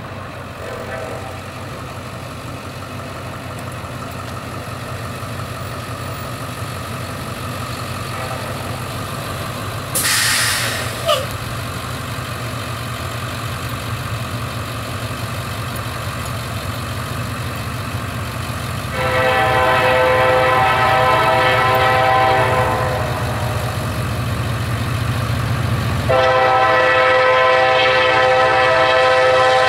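Lead CSX SD40-3 diesel locomotive sounding its air horn in two long blasts, the opening of a grade-crossing signal, over the steady low rumble of the approaching locomotives' engines. A brief hiss about a third of the way in.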